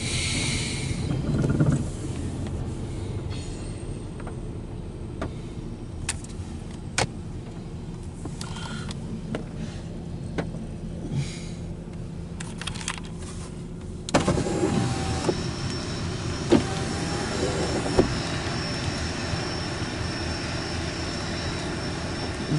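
Long intermodal freight train rolling past, heard from inside a car with a steady low hum and scattered rain ticks on the car. About two-thirds of the way through the sound suddenly opens up, louder and hissier, as a power car window comes down.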